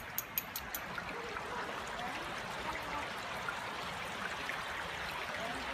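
Creek water running over rocks, a steady rushing. A quick run of light ticks comes in the first half-second.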